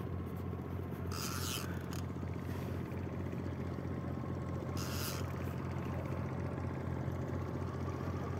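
Fishing boat's engine running steadily with a low, even throb. Twice a short rasping hiss cuts in, about a second in and again about five seconds in.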